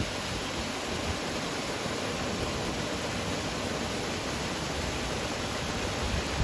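Water rushing steadily along a wooden flume and spilling over the end of the trough, a constant even wash of noise.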